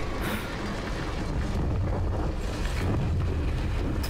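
A TV drama's soundtrack: a deep steady rumble with a wind-like rush over it, growing slightly louder after about a second and a half.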